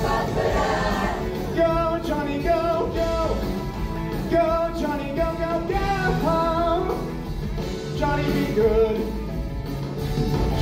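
A stage musical's cast singing a song with instrumental accompaniment, heard in a theater.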